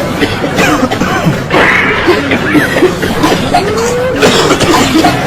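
A person coughing several times, with the strongest coughs about a second and a half and about four seconds in, over a steady low hum and background voices.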